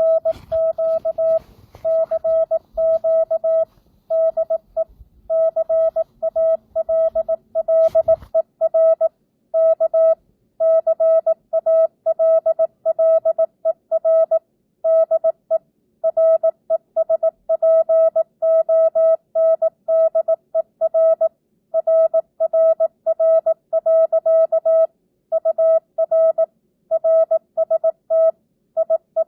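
Morse code (CW) sent at 18 words per minute with standard, non-Farnsworth spacing: a steady mid-pitched sidetone keyed on and off in dits and dahs, with short gaps between letters and words, simulating a two-way ham radio QSO. A faint low background noise sits under it for the first eight seconds or so.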